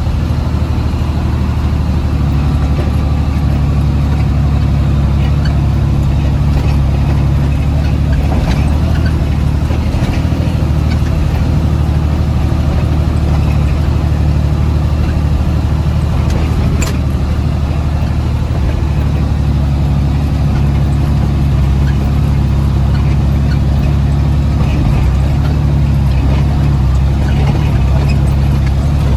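Heavy machine's diesel engine running steadily at an even speed, its note shifting slightly now and then, with a few faint clicks.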